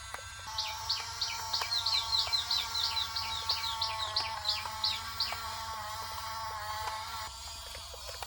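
A bird calling a quick series of about eighteen high, downward-sliding chirps, about four a second, stopping about five seconds in, over steady background music.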